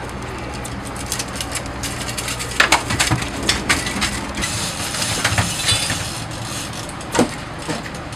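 A freshly landed fish thrashing in a landing net on a fiberglass boat deck: irregular slaps, knocks and rattles of fish, net and metal frame, thickest in the middle. Under it runs the steady low hum of the boat's engine.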